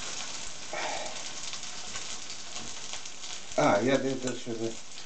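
Chicken-and-potato draniki sizzling steadily in a skillet on an electric hotplate as they fry golden. A short voice sound cuts in about three and a half seconds in, louder than the frying.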